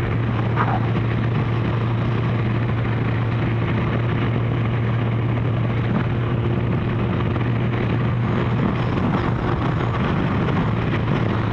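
Kawasaki GPZ1100 motorcycle's inline-four engine running at a steady cruise while riding, with a steady rush of wind and road noise over it.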